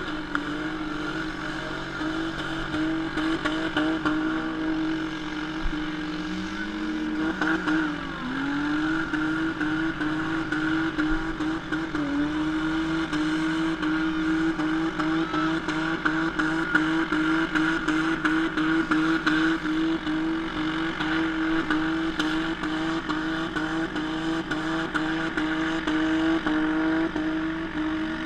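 Demolition derby car engines running hard and revving, with pitch dips and recoveries and a steady scatter of clattering knocks.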